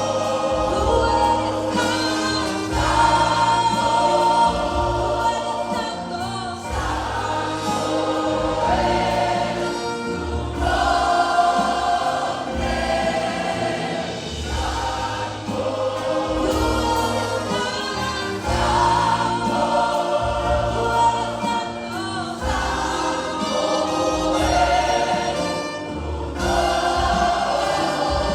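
Church choir singing a worship song in Spanish with instrumental accompaniment, recorded live in the room.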